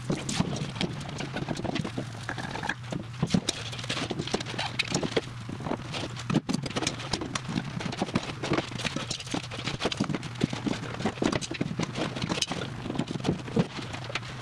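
Irregular metallic clinks and knocks of hand tools and filter canisters as oil and fuel filters are changed on a truck's diesel engine, over a steady low hum.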